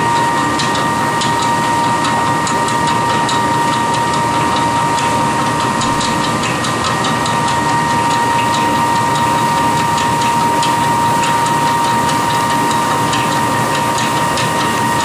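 A miniPelleter 18 pellet mill running steadily under load while pressing fish-feed pellets, its drive giving a steady high whine over a constant mechanical din. Many small clicks run through it as the pellets drop from the outlet chute onto the pile in a plastic bin.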